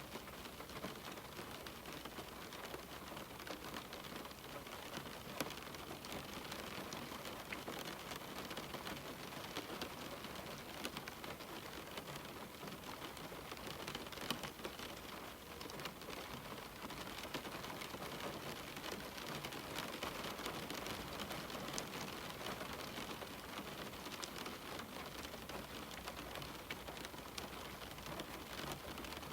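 Steady rain pattering on a window pane, a continuous hiss dotted with many small drop ticks and now and then a louder single drop.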